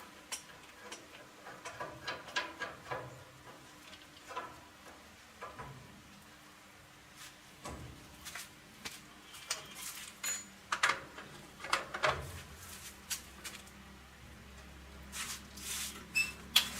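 Irregular light clicks and knocks of small parts and hand tools being handled, coming more often in the second half.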